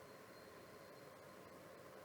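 Near silence: faint steady background hiss and room tone.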